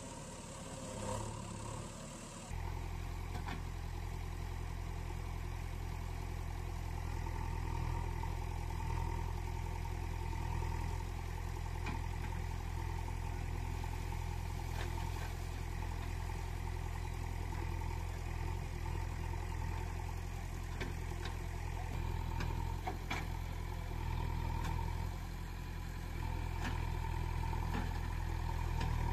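Heavy engine idling steadily, an engine sound laid over plastic toy vehicles that make no engine sound of their own; it starts abruptly about two and a half seconds in. A few faint clicks sound over it.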